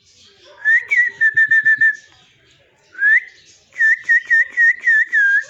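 White peacock calling in two loud bouts, each a rising note followed by a quick run of about six short repeated notes.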